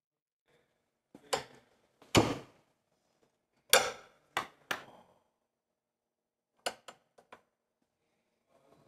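Wera Joker steel spanner knocking and clinking against a rusty bolt head and steel bracket as it is taken off and fitted again. Separate sharp metal knocks, loudest about two and four seconds in, then a quick run of lighter clicks about seven seconds in.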